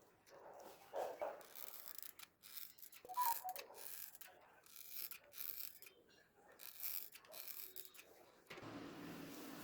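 Small parts being handled on a workbench: scattered clicks, taps and scrapes. A steady low hum starts near the end.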